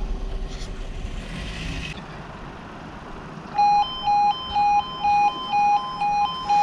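The two-tone 'yodel' warning alarm of an automatic half barrier level crossing starts up a little past halfway, switching between two pitches about twice a second. It sounds with the amber road light, the start of the warning sequence for an approaching train. Before it there is only a low rumble.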